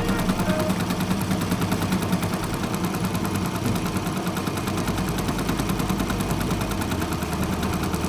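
Computerized embroidery machine stitching, its needle working in a fast, even clatter of many strokes a second over a low motor hum.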